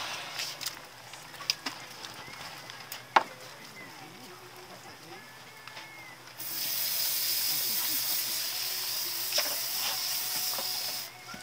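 A few sharp taps of a knife on the fish-cleaning table, then a steady hiss of hose water spraying that starts abruptly about six seconds in and cuts off near the end.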